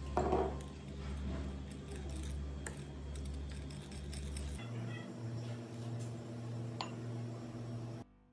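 Wooden spoon stirring melted butter in a ceramic bowl, with soft scraping and a few light taps of spoon against bowl, over a steady low hum.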